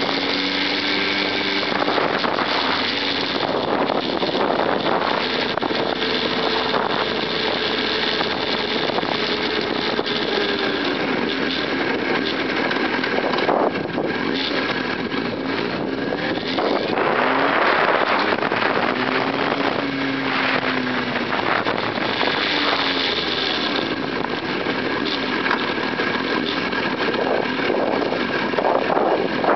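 Sport motorcycle engine running at low riding speed, its pitch rising and falling several times as the throttle is opened and closed, under a steady wind rush on the bike-mounted microphone.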